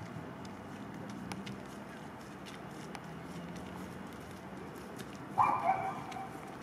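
A mallard quacks, a short loud run of quacks about five seconds in, over a steady low hum.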